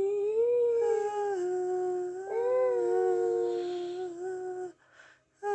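A person humming one long, steady note that wavers slightly in pitch and stops abruptly near the end, given as the answer to 'What does it sound like?' For about a second in the middle two pitches sound at once.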